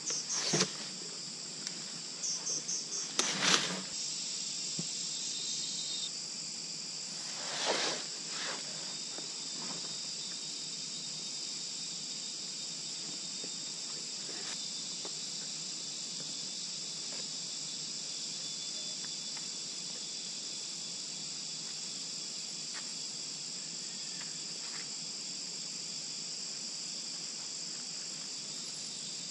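A steady, high-pitched chorus of insects. In the first eight seconds a few short rips and rustles of bark being peeled and handled cut through it, the loudest about three and a half seconds in.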